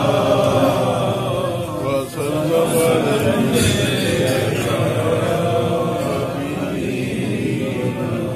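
A solo male voice chanting devotional verse without accompaniment, in long drawn-out notes, through a microphone and PA. There is a brief break for breath about two seconds in.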